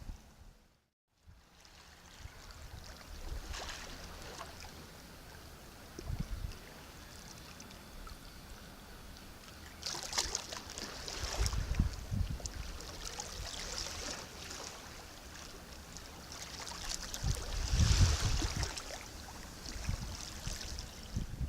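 Sea waves washing in, with a bigger surge roughly every few seconds and low thuds as they break. The sound cuts out briefly about a second in, then resumes.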